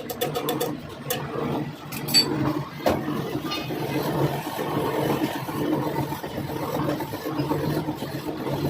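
A machine's motor running steadily with a low hum, with a few sharp clicks about one, two and three seconds in.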